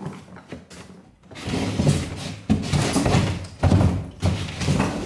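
Wooden boarding being wrenched off a wall by hand: a few knocks, then from about a second in a run of heavy thuds, bangs and scraping.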